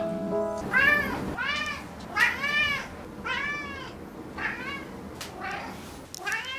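Tabby cat meowing over and over in a string of short meows, each rising then falling in pitch, begging for treats held above it.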